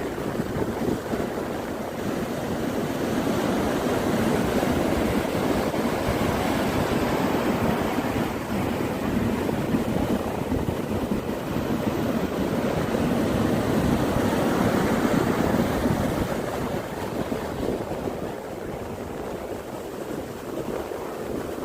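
Sea surf breaking and washing on a sandy beach, a continuous rushing that swells and eases slowly, with wind buffeting the microphone.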